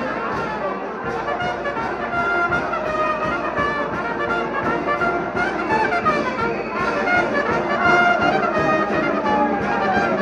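Brass band playing a tune over a steady beat.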